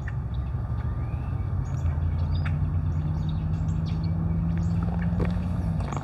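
Small birds giving short, scattered chirps over a steady low vehicle rumble.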